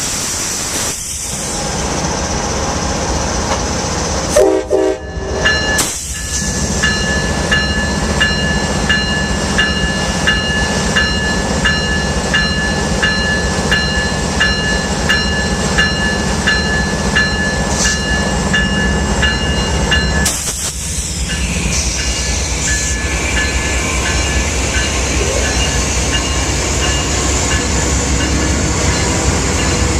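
Amtrak Southwest Chief locomotive: a steady diesel rumble with a brief horn sound about four seconds in, then the electronic locomotive bell (e-bell) ringing evenly at about one and a half strikes a second until it stops at about twenty seconds.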